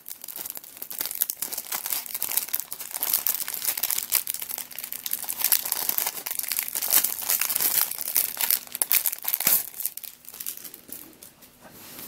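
Plastic packaging crinkling and rustling as a packet of puzzle sticker sheets is handled and opened, with rapid crackles that quieten about ten seconds in.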